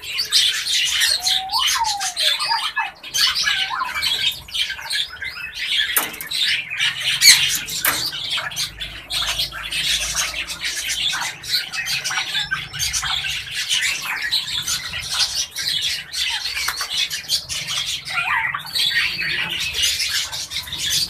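Birds calling: a dense, continuous chatter of squawks, chirps and clicks, with a few whistled notes gliding up and down about a second in and again near the end.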